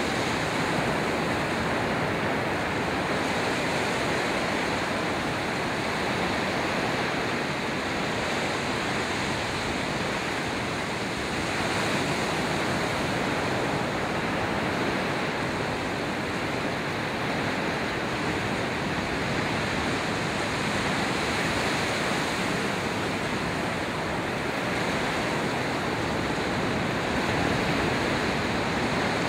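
Ocean surf breaking and washing up onto a sand beach: a steady rush of water that rises and falls slightly as the waves come in.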